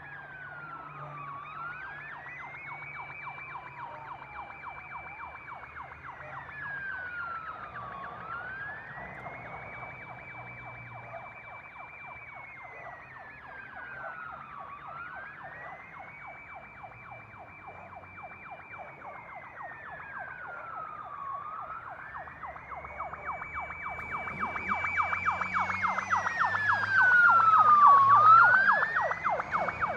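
Emergency vehicle siren on a slow wail: each cycle slides down, climbs back up and holds high, about every six and a half seconds. It grows steadily louder, peaks near the end and begins to fade as it passes, over a low traffic rumble.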